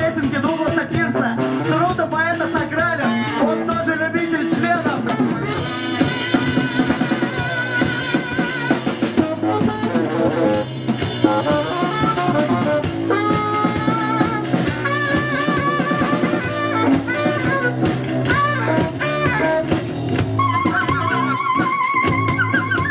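Live band music: singing over drums and electric guitar in the first few seconds, then an instrumental passage with a held, wavering lead line over steady drums.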